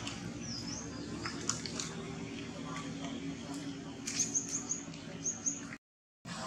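Short high-pitched animal chirps over a steady background, with a quick run of them about four seconds in. The sound drops out completely for a moment near the end.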